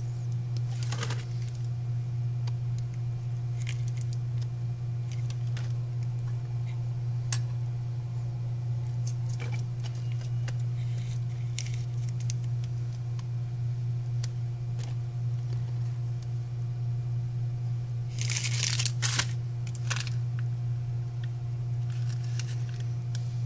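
A steady low hum, with scattered faint clicks and a short rustle of handling about three-quarters of the way through.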